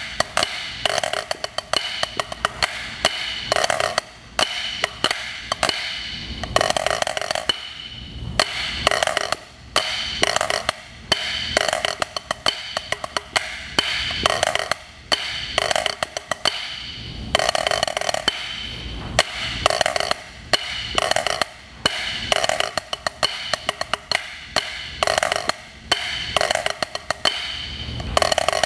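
Wooden drumsticks played on a drum practice pad, working through a snare drum part in 3/4 time: fast runs of strokes and rolls, broken by short pauses.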